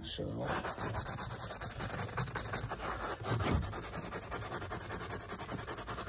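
Carpet being scrubbed by hand: a steady run of quick rubbing strokes across the fibres, working a sprayed-on carpet cleaner into a car's floor carpet.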